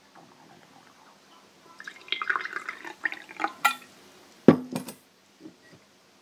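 Water poured from a bottle into a small drinking glass for about two seconds, then a few clinks and knocks as the bottle and glass are set on a wooden workbench, the loudest one about halfway through.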